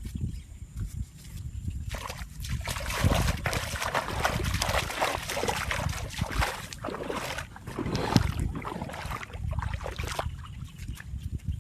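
Water splashing and sloshing for several seconds, starting about two seconds in and stopping near the end, over a low rumble.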